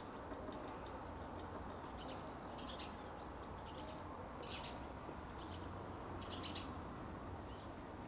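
Small garden birds chirping faintly: short, high chirps in little clusters every second or two, over a steady low background rumble.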